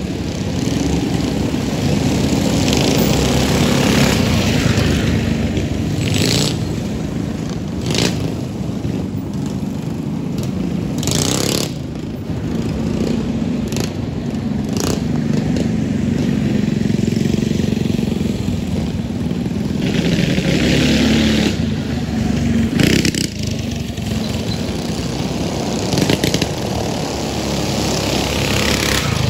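Several outlaw mini bike engines running and revving, loud throughout and swelling and easing, with several brief sharp cracks on top.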